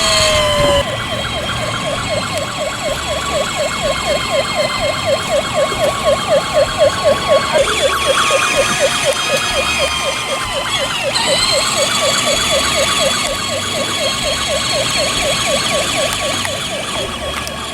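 Electronic toy police siren from a kids' ride-on police motorcycle: one falling tone in the first second, then a fast yelping wail at about four cycles a second.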